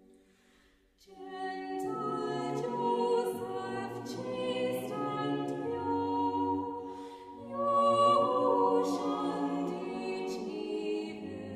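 Choir singing slow sustained chords in several voice parts. It comes in about a second in after a brief near-quiet and swells loudest about eight seconds in.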